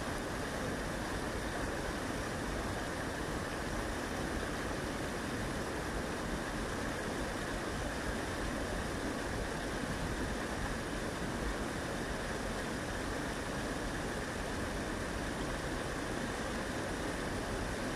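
Stream water pouring over a low weir, a steady rushing that does not change.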